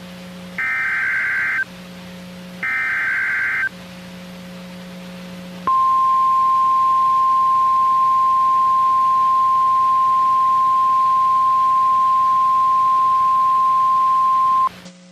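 Two bursts of an Emergency Alert System SAME digital header, raspy warbling data tones about a second long and a second apart. They are followed by the NOAA Weather Radio 1050 Hz warning alarm tone, held steady for about nine seconds and cut off sharply near the end. Together they signal a warning being broadcast, here a severe thunderstorm warning.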